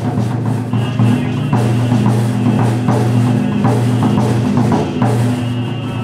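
Taiko drum beaten in a quick, steady rhythm for a Buddhist prayer service, over a steady low drone.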